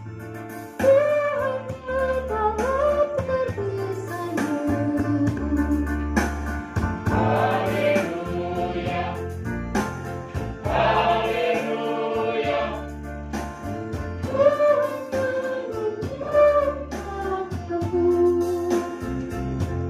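Small mixed choir of men and women singing together from song sheets at a rehearsal, with steady low bass notes sounding underneath.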